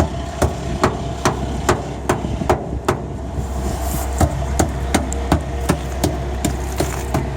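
Hammer blows knocking hardened concrete buildup off a concrete mixer truck, struck in a steady rhythm of about two and a half a second, over the low steady running of the truck's engine.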